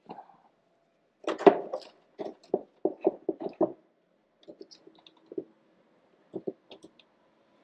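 Handling noise from small hard parts and tools: a string of sharp clicks and knocks, loudest about a second and a half in, then a quick run of about six, then a few fainter ones.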